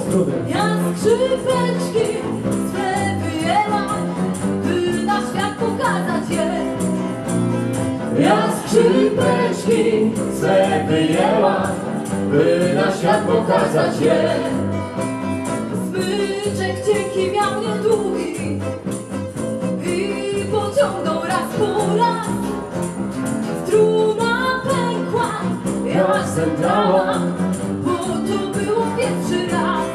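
Live acoustic folk song: two acoustic guitars strummed with a woman singing lead into a microphone, with jingling hand percussion over the top.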